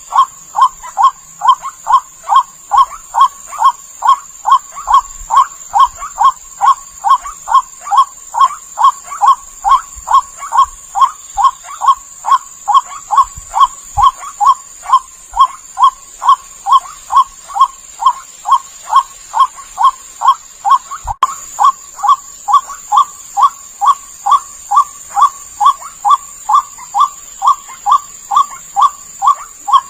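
White-breasted waterhen (ruak-ruak) calls used as a bird lure: short croaking notes repeated evenly about twice a second without a break. A steady high-pitched whine runs underneath.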